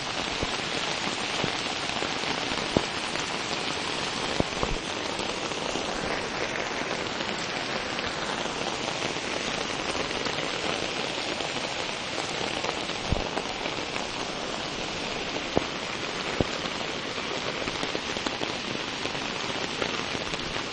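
Steady heavy rain falling, with scattered sharper drop hits close by.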